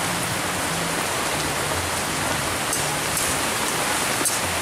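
Steady rain falling, an even hiss throughout. A metal spatula knocks once against the iron wok near the end.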